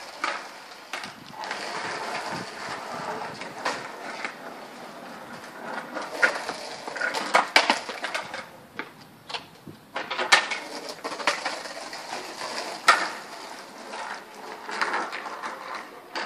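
Skateboard wheels rolling on street pavement, with several sharp clacks of the wooden deck hitting the ground.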